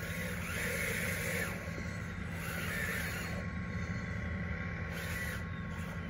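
Small electric drive motors and gearboxes of a radio-controlled construction model running steadily, with a constant whine.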